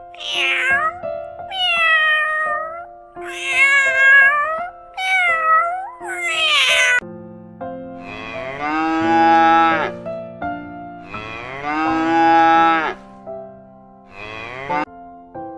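A cat meowing several times in quick succession, high and wavering, followed by two long, lower moos from a cow, with a couple of short calls near the end, over quiet background music.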